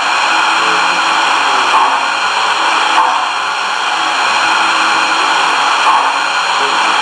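Steady hiss of idling steam-locomotive sounds played through the speaker of an MTH HO-scale 2-8-8-4 Yellowstone model's Proto-Sound 3.0 sound system, with a few small swells in loudness.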